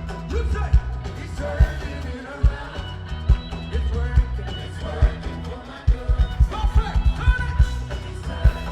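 Live gospel band playing with singing over it: a steady kick-drum beat and bass, with a quick run of drum hits around six to seven seconds in.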